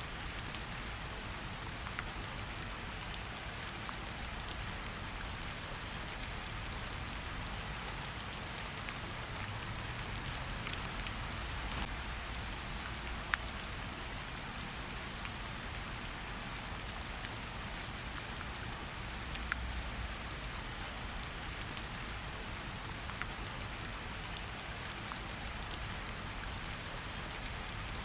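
Heavy rain falling steadily: an even hiss dotted with scattered sharp ticks of individual drops.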